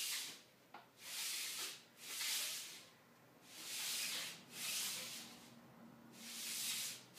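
A flat slider under a bare foot swishing across a tile floor as the leg slides back and forth: about six hissing scrapes, loosely in pairs.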